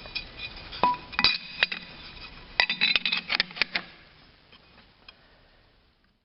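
Metal pieces clinking and knocking against metal with short ringing notes: a few separate knocks in the first second and a half, then a quick run of clinks from about two and a half to nearly four seconds in, dying away after.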